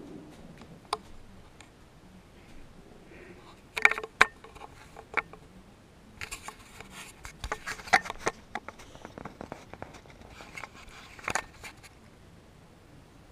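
Hand handling a camera right at its microphone: clusters of scraping, rubbing and clicking, loudest about four seconds in, again from about six to nine seconds, and once more near eleven seconds.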